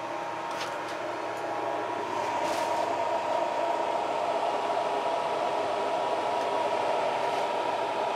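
Cooling fans of a Kelant Combat S500 resin 3D printer running: a steady whirring hiss with a high hum, getting louder about two seconds in.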